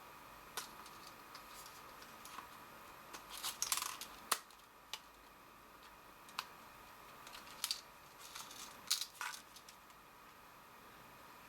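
Scattered light clicks, taps and small rattles of a Sony a6000 mirrorless camera and its battery being handled as the battery is fitted into its compartment, with a busier run of clicks about four seconds in and another near nine seconds.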